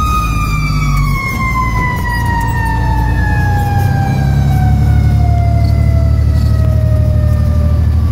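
A fire truck's mechanical siren winding down, its wail falling slowly and steadily in pitch after the first half second, heard from inside the truck over the truck's engine. The engine rumble grows louder about four seconds in.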